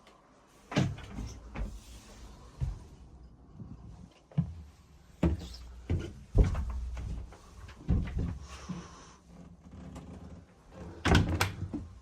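A series of irregular knocks and thumps, about ten in all, the loudest a little past the middle and a pair near the end.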